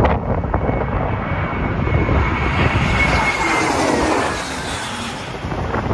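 Jet engines of an Airbus A321 on landing approach going by, the roar swelling to a peak about halfway through and then easing off, with a thin high engine whine. A low wind rumble on the microphone runs underneath.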